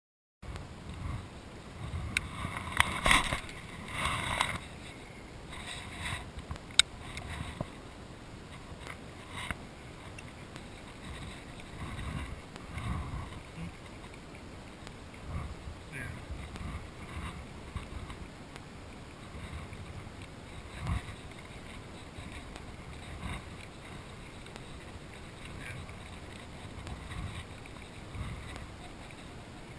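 Steady wind and water noise around a small fishing boat, with scattered knocks and clicks from handling a baitcasting rod and reel. One sharp click comes about seven seconds in.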